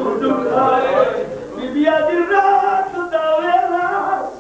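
A man's voice singing a melodic recitation into a microphone, holding long wavering notes that rise and fall, with short breaks between phrases. The performer is a majlis reciter singing a sung passage of the recitation.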